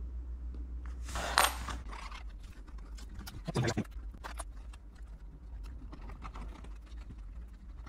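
Razor blade scraping old adhesive film off the glass of an LCD display, a run of small scratches and ticks with two louder scrapes, about a second in and about three and a half seconds in, over a steady low hum.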